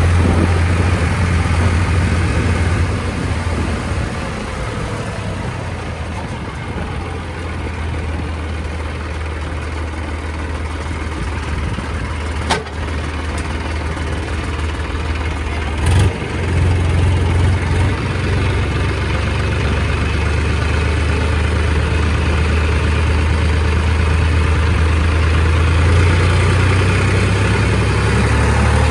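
Massey Ferguson 7250 DI tractor's diesel engine running steadily under way, a deep, even drone that eases off for a while and then picks up again about halfway through. Two sharp clicks or knocks cut across it, one a little before halfway and a louder one about halfway.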